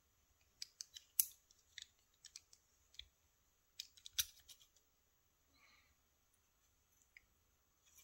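Small metal lock parts clicking faintly as the key and core of a disassembled Bramah-style cylinder lock are worked by hand: a scatter of separate sharp clicks, loudest about a second in and again about four seconds in, thinning out after that.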